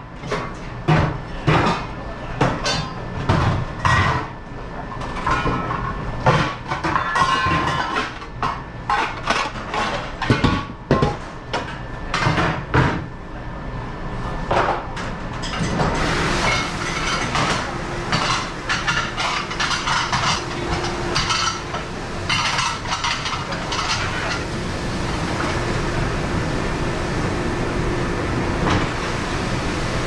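Ceramic plates and plastic dish racks clattering and knocking irregularly in a commercial dish pit. About halfway through, a steady rush of running kitchen machinery with a faint low hum comes in under the clatter.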